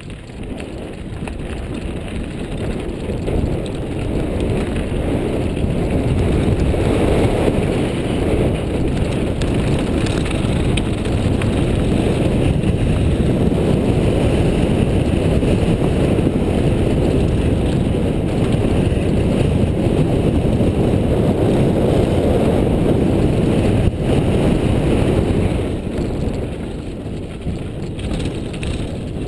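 Wind rushing over the camera microphone while a mountain bike rolls along a dirt and rock singletrack, with tyre rumble and trail noise. It grows louder as speed builds and eases off a few seconds before the end.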